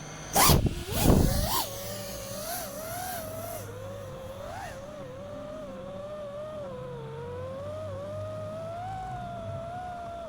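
Five-inch FPV quadcopter's T-Motor Velox V2207 brushless motors and propellers: two sharp throttle punches with fast rising and falling pitch in the first second and a half, then a steady whine that wavers up and down in pitch as the throttle changes.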